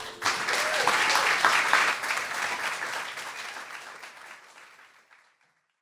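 Audience applauding, with a whoop or two, loud at first and then dying away over about five seconds.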